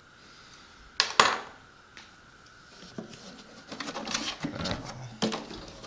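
A hard object knocks sharply on a wooden tabletop about a second in. Small ticks follow, then a stretch of rubbing and light clatter as small tools and parts are handled.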